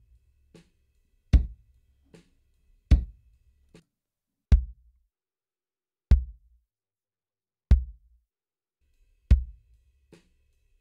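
Kick drum hits played back from a multitrack acoustic drum recording, doubled with a sampled kick from Logic Pro X's Drum Replacer, one hit about every 1.6 seconds. Fainter drum hits fall between them for the first few seconds and again near the end.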